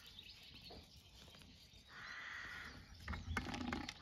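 Faint outdoor ambience with birds calling and chattering, and a short stretch of louder clicks and rustling about three seconds in.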